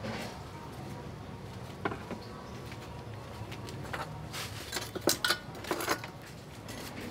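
Metal cookware clinking and knocking: an aluminium pot lid and a long metal tool handled at a wood-fired stove. A couple of sharp clinks come about two seconds in, then a quick run of clatters from about four to six seconds in.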